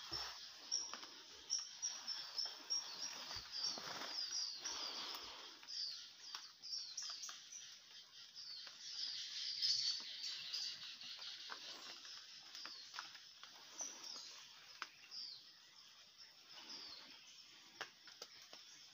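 A flock of fruit-eating birds in a banyan tree chirping and twittering in many quick, overlapping high calls, busiest and loudest about ten seconds in. A soft rustle runs beneath the calls in the first few seconds.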